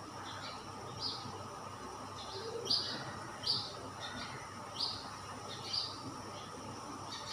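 A small bird chirping, short high chirps repeated every second or so, over a steady background hiss.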